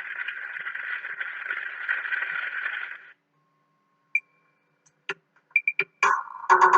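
Thin, narrow-band hiss of an old archival film soundtrack that cuts off suddenly about three seconds in, then silence broken by a few sharp clicks. Guitar music starts just before the end.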